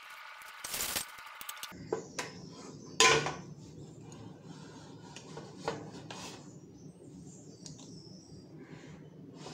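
Knocks and clatter from a Philips air fryer basket being handled by its handle, a few sharp knocks with the loudest about three seconds in. A steady whirring noise at the start cuts off before two seconds in.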